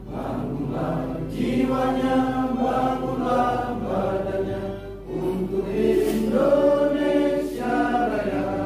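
A roomful of people singing a song together in unison, with long held notes and a brief break about five seconds in.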